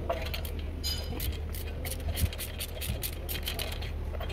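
Ratchet on a long socket extension loosening spark plugs, with irregular clicks and metallic clinks of the extension in the plug wells, one ringing clink about a second in, over a steady low hum.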